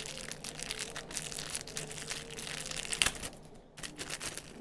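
Paper and plastic packaging crinkling and rustling as the user manual and papers are handled out of the speaker's box, with one sharp click about three seconds in.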